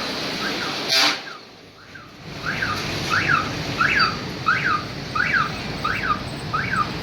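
An electronic alarm chirping over and over, each chirp rising and falling in pitch, about two a second and louder from a few seconds in, over steady traffic-like background noise. A brief loud toot sounds about a second in.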